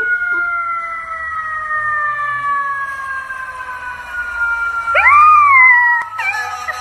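A siren's long, slowly falling wail. About five seconds in, a golden retriever puppy joins in with a howl that rises and falls, and shorter wavering howl notes follow near the end.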